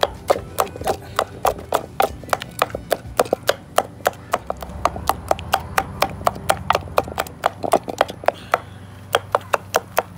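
Wooden pestle pounding greens in a wooden mortar: quick, even wooden knocks about four to five a second, with a short pause near the end.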